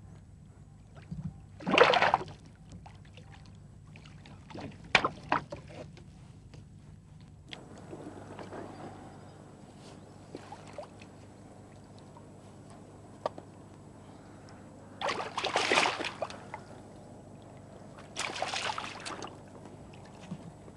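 Hooked carp splashing and thrashing at the water's surface as it is drawn in and landed in a net, with water sloshing. Several sudden splashes come and go: the loudest about two seconds in and again around fifteen to sixteen seconds in.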